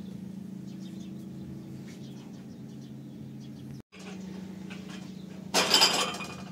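A steady low electrical hum in the room. About five and a half seconds in comes a brief loud clatter, as a metal tea tray with tea glasses is set down on the floor.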